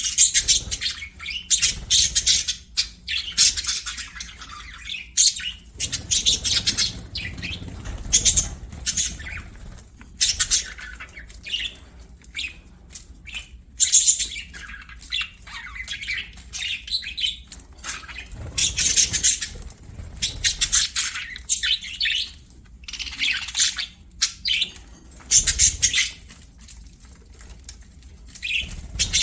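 Budgerigars chattering in bursts of rapid high-pitched chirps and squawks, a new burst every second or two.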